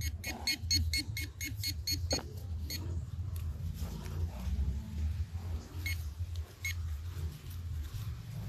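Metal detector giving a rapid, even run of short beeps, about four or five a second, over a target; the run stops about three seconds in and two more single beeps follow later. A low steady hum runs underneath.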